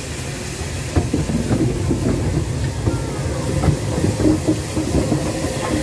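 Bulleid West Country class Pacific steam locomotive City of Wells running close by tender-first: a steady rumble, with irregular clanks and rattles of wheels on the rails starting about a second in.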